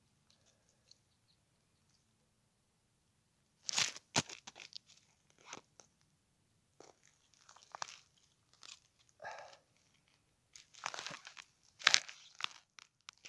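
Boots crunching on frozen snow and ice, in irregular bursts starting about four seconds in after near quiet.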